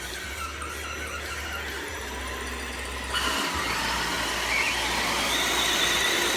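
Whine of the electric motors and gear drives of radio-controlled Axial SCX10 crawler trucks driven under load. The pitch glides upward, gets louder about halfway through, and then holds as a steady, slightly wavering high whine.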